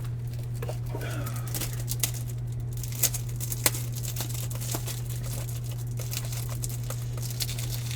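Trading cards and plastic card-sleeve packaging being handled: soft crinkling with a scatter of sharp clicks, over a steady low electrical hum.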